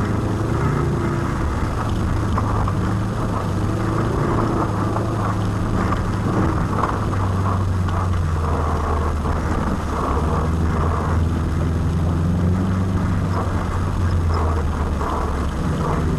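Four-wheel-drive rally car's engine running hard at stage speed, heard from inside the cabin; the engine note dips briefly about ten seconds in.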